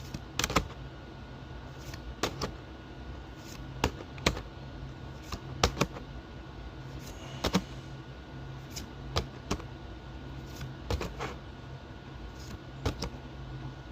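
Pokémon trading cards being flipped through one by one, each card giving a sharp click or snap as it is slid off the stack, irregularly about once a second. A steady low hum runs underneath.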